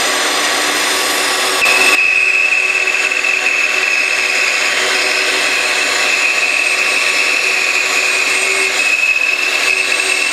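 Bandsaw running and cutting through a wooden workpiece with its template taped on, rough-cutting just outside the template. The sound changes abruptly about two seconds in, and from then on a steady high whine sits over the saw noise.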